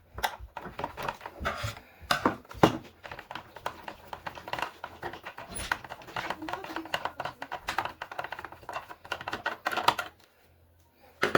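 Irregular clicking, tapping and rattling of a Phillips screwdriver working screws out of a carpet cleaner's plastic casing, with a few sharper knocks in the first three seconds. The clicking stops about a second before the end.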